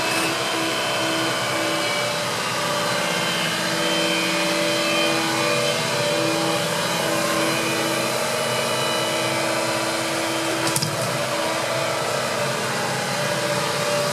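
Hitachi Zaxis compact tracked excavator running steadily, its diesel engine and hydraulic pump whining as it swings the boom and grapple. A short sharp clank about ten and a half seconds in.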